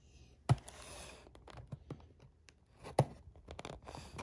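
Scissors and hands working at the wrapping of a trading card box: two sharp clicks about two and a half seconds apart, with light scraping and rustling between.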